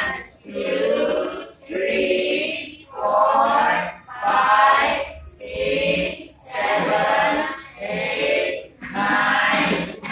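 A group of students chanting in unison, one drawn-out word about every second, like a class counting aloud slowly together.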